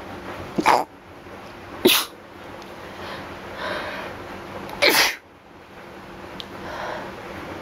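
A person sneezing three times: two short, sharp sneezes just over a second apart, then breathy inhaling and a third sneeze about five seconds in.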